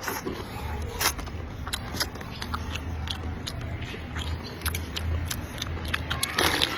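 Close-up eating sounds: chewing noodles and beef with many small wet mouth clicks, and a short noisy suck near the end, over a steady low hum.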